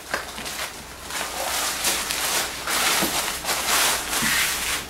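Plastic courier mailer and the clear plastic wrap around a boxed keyboard rustling and crinkling in irregular surges as the box is pulled out of the bag.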